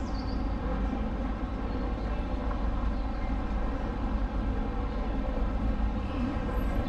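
Steady rumble of road traffic on a city street, engines running close by.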